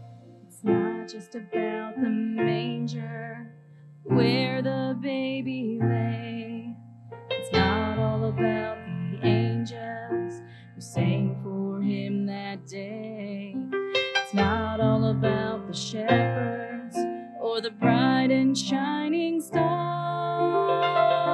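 A woman singing a slow worship song with piano accompaniment.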